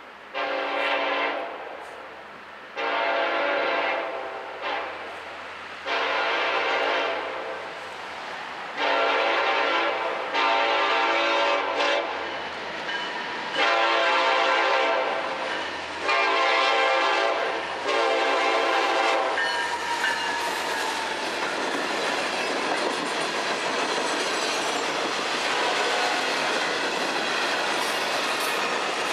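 Freight locomotive air horn sounding a run of long blasts for a grade crossing, about eight over some twenty seconds, each a chord of several tones. After that comes the steady rumble and clickety-clack of freight cars rolling over the crossing.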